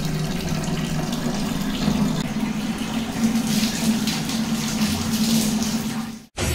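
Bathroom tap running into a bucket: a steady gush and splash of water with a steady low tone underneath. It cuts off suddenly near the end.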